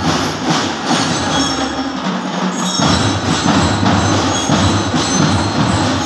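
A school drum and lyre corps playing. Drums beat a steady march rhythm and bell lyre notes ring over them. The low drumming drops out for under a second about two seconds in, then comes back.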